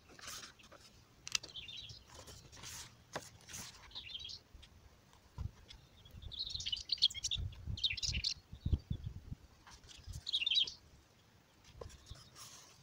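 Small birds chirping in short bursts, mostly in the second half, while the paper pages of a book rustle and flick as they are turned by hand. There are a few low thuds in the middle.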